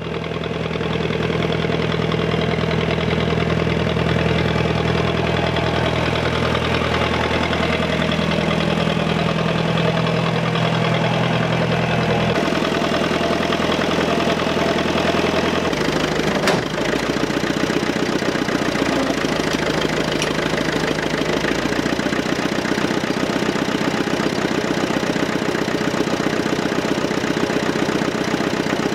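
Tractor engine of a tractor-mounted McConnel backhoe digger running steadily. Its note changes about twelve seconds in and again about sixteen seconds in, with a single knock just after.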